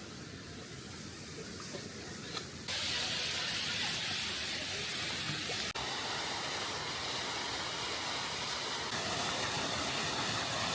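Steady rushing of a waterfall. It jumps louder and brighter about two and a half seconds in, then stays steady with small sudden shifts.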